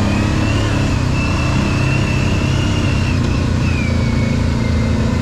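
ATV engine running steadily under way on the trail, with a high whine that rises about a second in, holds, and drops back after about four seconds.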